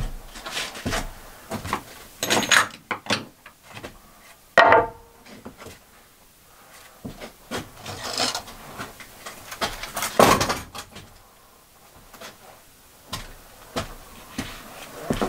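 Scattered knocks, thumps and scrapes of wooden boards and hand tools being handled and set down on a stack of OSB sheets, with footsteps on a board floor. The sharpest is a single knock with a short ring about four and a half seconds in.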